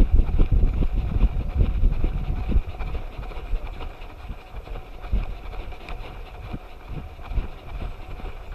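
Low wind buffeting and handling rumble on a GoPro strapped to a running dog's harness, with a quick run of thuds from its footfalls and the bouncing mount, and grass brushing past. The rumble is heavy at first and eases about two and a half seconds in, leaving softer, scattered thuds.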